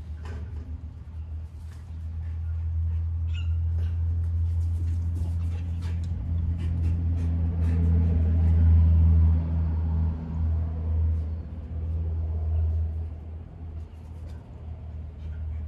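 A vehicle engine's low drone that builds to its loudest about eight seconds in and then fades away, with scattered light taps and knocks over it.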